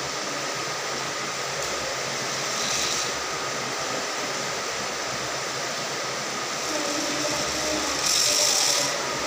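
Small electric motor and gearbox of an RC crawler running steadily, a continuous mechanical whir with slight swells in level.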